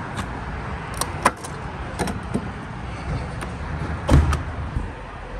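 Refuelling handling sounds: a few sharp clicks and knocks as a pickup's fuel door and cap are opened and the pump's grade button is pressed, with a heavier thump about four seconds in, over steady forecourt and traffic noise.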